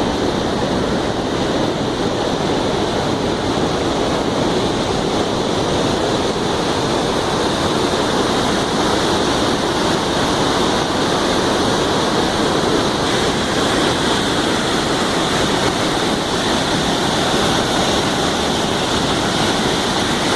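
Waterfall's falling water rushing in a steady, loud, unbroken wash of noise.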